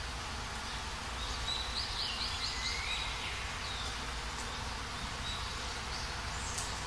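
Steady outdoor insect buzz with scattered bird calls: a quick run of chirps about two seconds in, then single short calls.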